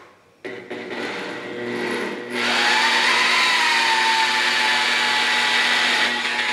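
DeWalt variable-speed rotary polisher starting about half a second in and winding up over a couple of seconds, then running steadily at about 1200 RPM. A black foam pad is buffing compound into fresh clear coat.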